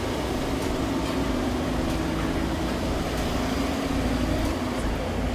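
Street traffic: car and truck engines idling in a queue of stopped vehicles, a steady low rumble with a faint hum.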